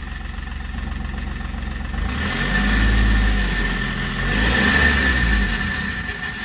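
Seat Ibiza engine idling, then revved twice, with a steady high whine that is loudest during the revs: the sound of a failed turbocharger.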